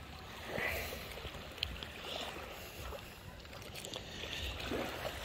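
Faint sloshing of shallow water around a person's legs as they wade, with a few soft splashing steps and a small click about a second and a half in.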